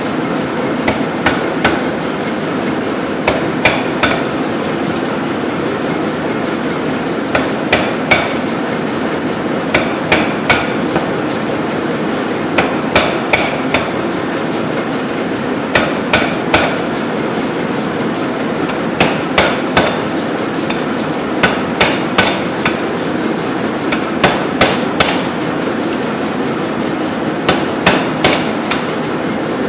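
500 lb Nazel air hammer striking a handled top tool held on red-hot steel, in short bursts of two to four blows every two to three seconds. Between the blows the hammer keeps up a steady running noise.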